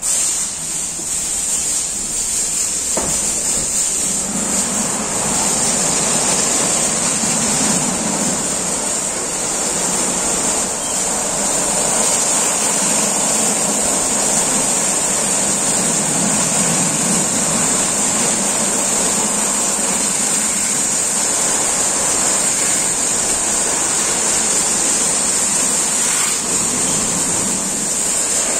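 Automatic rollover car wash gantry running, its rotating brushes scrubbing and its nozzles spraying water over a car. It makes a steady rush of water and brushes under a strong high hiss, swelling in the first second and then holding even.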